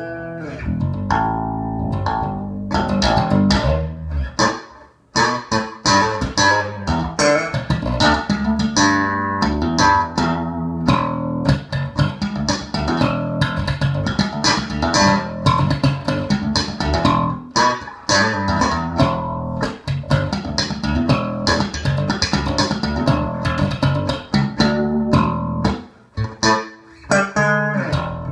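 Four-string electric bass guitar played through a bass combo amp: a steady run of plucked notes, with brief pauses about five seconds in and near the end.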